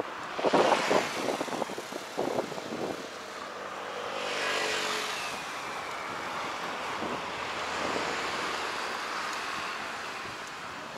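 Road traffic: a motor vehicle passes by, its engine hum and tyre noise swelling and dropping in pitch as it goes, followed by a steady traffic rumble that eases off near the end.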